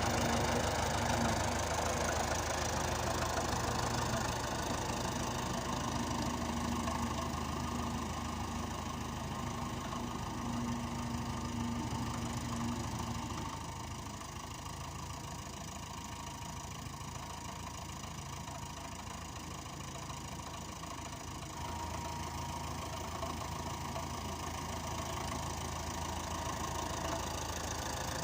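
Fordson Diesel Major tractor's four-cylinder diesel engine running with a steady knocking diesel clatter. It goes quieter about halfway through and picks up again a little later.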